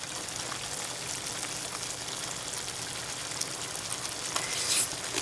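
Pot of pork kimchi stew simmering on the heat: a steady sizzling, bubbling hiss. A couple of short, louder noises stand out near the end.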